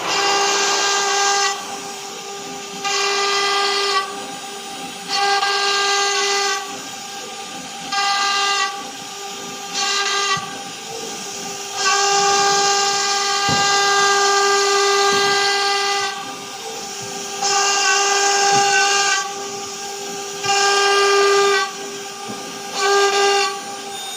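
CNC router spindle running with a steady high whine. Louder, harsher stretches of cutting noise lasting one to four seconds come and go every few seconds as the bit works the workpiece.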